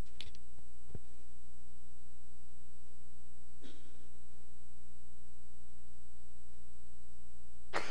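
Steady low electrical hum from the sound system during a pause, with a faint click or two near the start and a faint short rustle about four seconds in.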